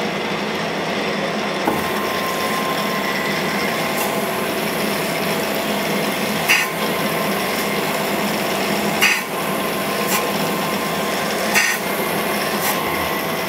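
Cam grinder's wheel grinding a lobe of a solid-roller FE Ford camshaft under flowing coolant: a steady grinding hiss with a motor whine. Four brief, sharper rasps come about every two and a half seconds.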